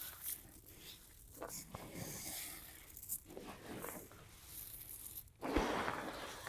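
Faint, irregular scratchy crunching of a soil, perlite and pebble mix being stirred, louder near the end.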